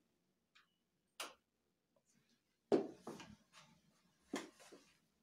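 A few separate knocks and clicks in a small tiled room: a light one about a second in, the loudest nearly three seconds in with smaller ones trailing after it, and another about a second and a half later.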